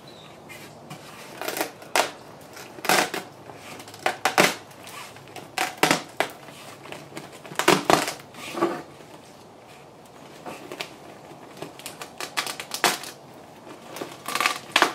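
Irregular crackles and clicks as hands work over a fiberglass-and-epoxy-wrapped rocket body tube; they come in uneven clusters and thin out for a few seconds in the second half.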